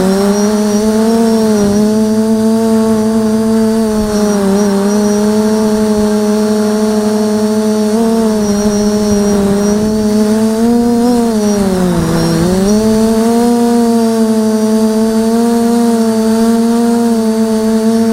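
Electric motors and propellers of a 550 mm quadcopter humming steadily, heard through its onboard camera, with a faint high whine above. The pitch climbs just after the start, then dips and comes back up about twelve seconds in.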